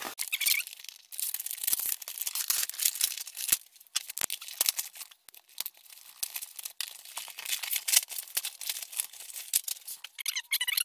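Robot vacuum packaging being handled and opened: irregular rustling, crinkling and tearing of plastic wrap, cardboard and foam, with a few squeaks near the end.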